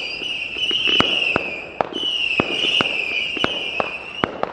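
Fireworks going off: a high, wavering whistle that breaks off about a second and a half in and starts again shortly after, with scattered sharp cracks and pops throughout.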